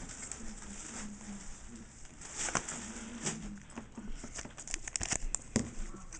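Foil booster packs and trading cards being handled: scattered crinkles and sharp clicks, busier in the second half. A soft, low cooing comes and goes in the background.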